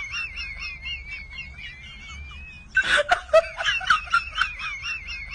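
A high, wavering whistle-like tone with small chirps above it; about three seconds in, a sudden burst of snickering laughter comes in over it.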